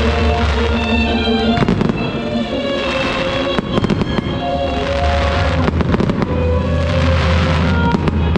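Aerial firework shells bursting and crackling, many quick bangs one after another, over music with held notes and a steady deep bass.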